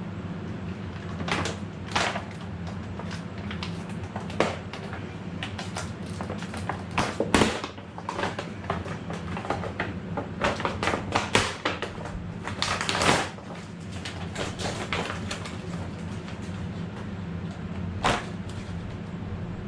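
Irregular clicks, knocks and scraping of tools and metal parts being handled while a blade is fitted to an Evolution 14-inch metal-cutting chop saw, with the busiest clusters about 7 and 13 seconds in, over a steady low hum.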